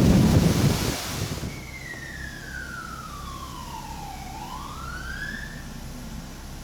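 Loud wind-like noise on the microphone, then a single whistling tone that slides down over about three seconds and back up again, over a steady hiss.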